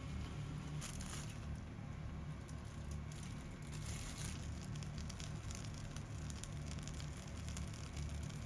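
Food sizzling and crackling in a frying pan, with irregular fine crackles over a steady low hum.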